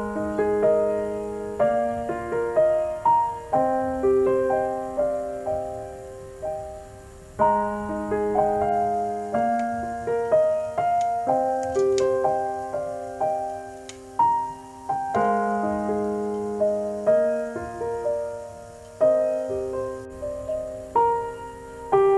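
Background piano music: single notes and chords are struck and left to fade.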